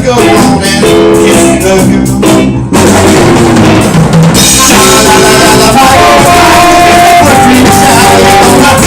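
Live band playing a cover song, led by a drum kit with bass, electric guitar and horns. The band drops out briefly a little under three seconds in, then comes back in full, with the cymbals louder from about four seconds in.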